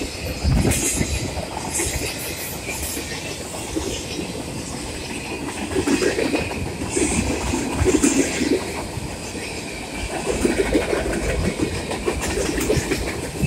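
Freight cars rolling past at close range: the steady rumble and clatter of steel wheels on the rails, with irregular knocks and louder swells as the car trucks go by.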